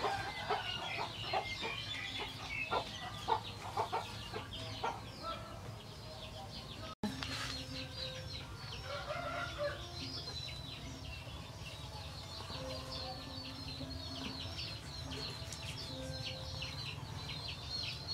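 Chickens clucking, with scattered short high chirps.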